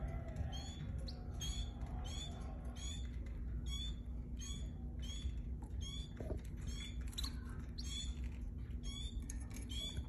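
Canary giving short, high chirping calls over and over, about two a second.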